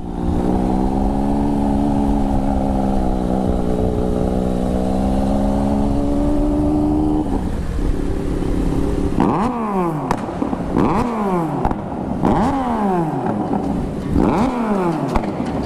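Motorcycle engine running at a steady speed for about seven seconds, its pitch dipping and rising slightly. After a short lull comes a string of quick throttle blips, each rev climbing sharply and falling back.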